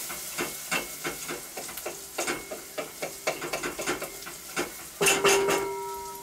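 Food sizzling in a pan while a utensil stirs it, knocking and scraping against the pan two or three times a second. About five seconds in, a louder clatter leaves the metal ringing briefly.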